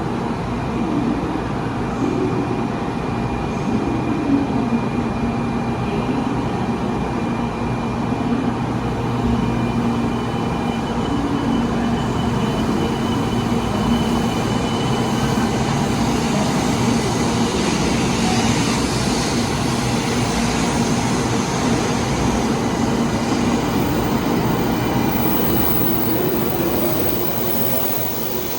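A train at a station platform, running with a steady hum and noise and faint whining tones, rather than passing by.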